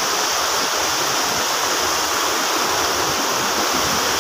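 Floodwater flowing fast over a road culvert: a steady rush of water.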